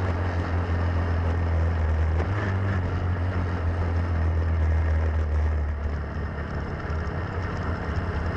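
Lifan single-cylinder four-stroke kart engine running at low, steady revs as the kart cruises off the track after the finish. About six seconds in the steady note fades and turns rougher as the engine eases off.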